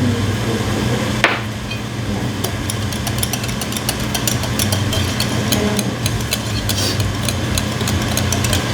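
Ube puto batter being stirred in a mixing bowl, with quick, irregular clicks of the utensil against the bowl from about two and a half seconds in, over a steady low hum.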